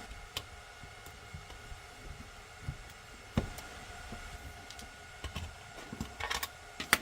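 Faint, scattered small clicks and taps of a handheld multimeter's plastic case being handled while a Phillips screwdriver backs out the battery-cover screw.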